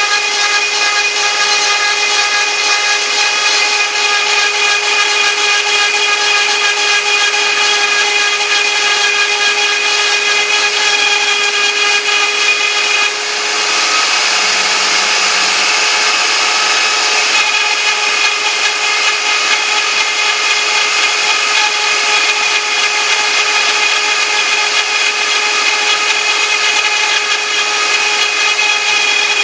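CNC router spindle running with a steady whine while the bit cuts, engraving lettering. The sound dips briefly about 13 seconds in, then runs rougher for a few seconds before settling back to the steady whine.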